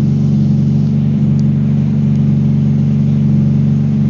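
Car engine idling steadily, running without a proper exhaust system.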